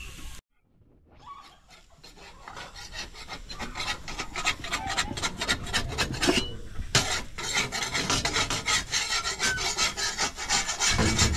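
Quick, dense scraping or rasping strokes that fade in after a brief silence and grow louder.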